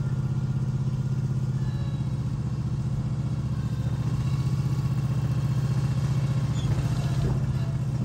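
Small engine of a yellow shed-moving machine running steadily, with a rapid, even throb.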